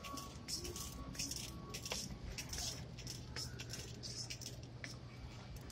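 Plastic sheeting rustling and crinkling right against the microphone in short bursts several times a second, over a steady low hum.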